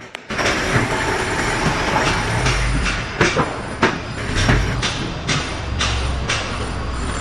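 Steady mechanical rumble and noise with sharp clacks repeating about twice a second, like wheels running over rail joints.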